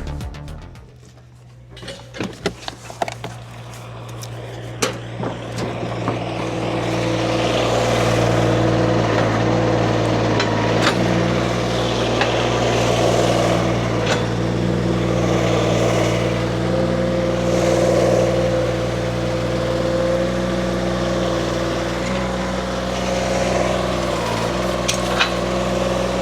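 An engine running at a steady speed, with several sharp knocks or clanks in the first few seconds and a few more later on.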